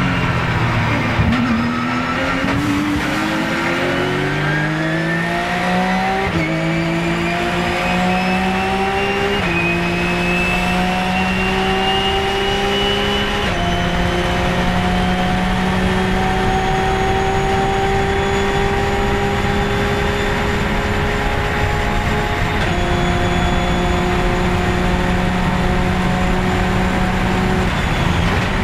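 Porsche 997 GT3 Cup's flat-six race engine heard from inside the cockpit, accelerating hard out of a corner: revs dip briefly at the start, then climb through upshifts about 6, 9 and 13 seconds in, and hold high and steady with one more upshift near the end.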